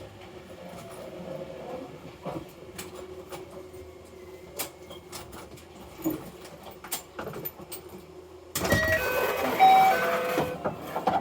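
Steady low rumble of a train ride with scattered clicks and knocks. About eight and a half seconds in it cuts abruptly to a louder, busier din with several short steady tones.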